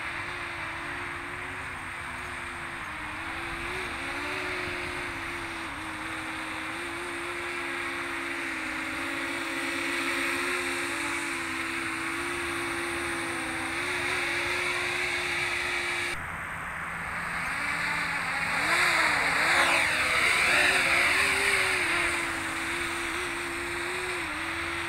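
Quadcopter's motors and propellers buzzing in flight, the pitch wavering up and down with throttle changes. It grows louder about 18 to 22 seconds in, with pitch sweeps as the drone manoeuvres close by.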